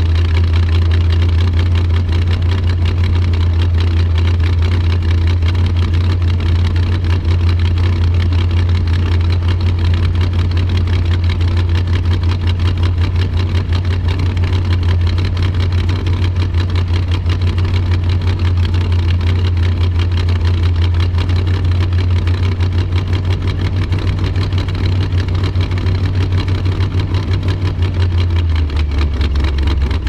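350 small-block Chevy V8 with a Comp Cams Thumpr cam, running steadily at a raised speed of about 1,300 to 1,600 rpm. Near the end the engine note drops as the revs fall back toward idle.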